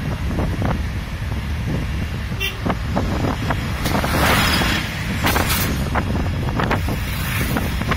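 Road noise from a moving vehicle: a steady low rumble of tyres and engine with wind on the microphone and scattered small knocks. A rush of louder hissing noise comes about four seconds in.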